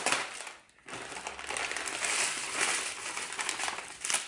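Thin plastic bags crinkling as small packets of diamond painting drills are pulled out and handled, with a short lull about a second in.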